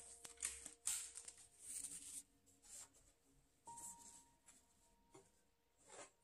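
Disposable diapers and their plastic packaging rustling and crinkling as they are handled and stacked, in a string of short, soft bursts, with faint background music underneath.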